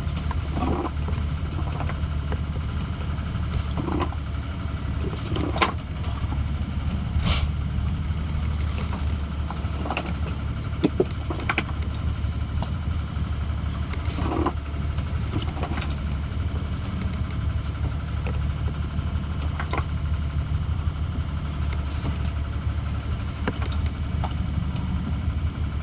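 Sailing yacht under way in a rough sea: a steady low drone, with wind and water rushing past the hull and short louder splashes or knocks every few seconds.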